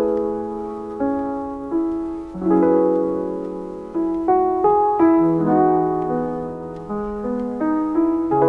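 Background piano music: notes and chords struck every second or so, each fading before the next.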